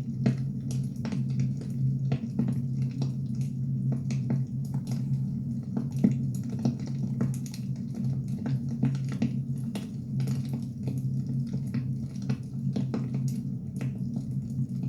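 Firewood burning, with irregular sharp crackles and pops over a steady low rumble.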